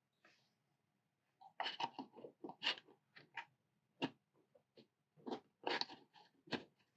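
Irregular small clicks, taps and scrapes from a plastic HO-scale hopper wagon model and its bogies being handled and screwed together.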